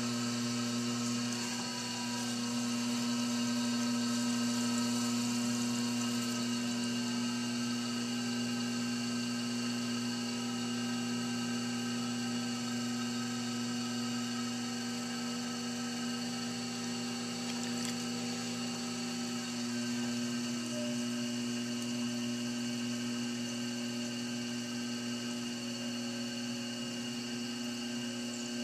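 Electric pottery wheel running steadily: a motor hum with a higher whine over it, while wet clay is thrown on the spinning wheel head.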